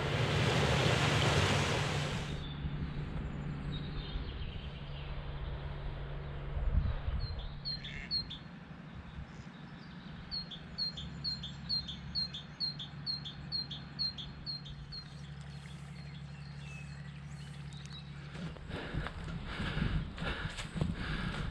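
A small songbird repeating a short high two-note chirp about twice a second, over a steady low hum. A stream rushes over stones for the first couple of seconds, and footsteps on a dirt path come in near the end.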